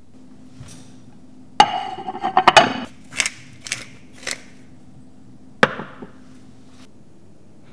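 Hard objects being knocked and handled: a sharp knock with a brief ring, a quick run of clattering knocks, a few short scrapes, then another sharp knock.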